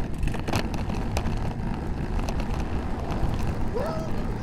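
Wind rushing over the microphone of a camera on a moving road bicycle, with road rumble and a few sharp knocks from bumps. Near the end a dog starts barking, short barks that rise and fall in pitch.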